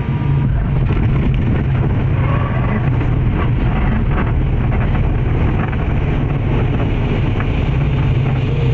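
Turboprop airliner's engine and propeller heard from inside the cabin, a loud steady drone with a strong low hum, as the aircraft rolls along the runway.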